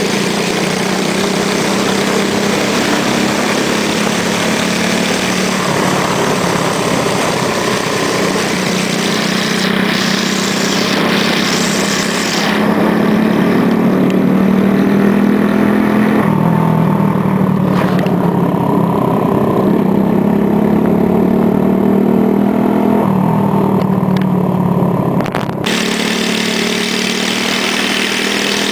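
Motorcycle engine running steadily on the move, with wind rushing past the microphone. The engine gets louder about halfway through and drops back shortly before the end.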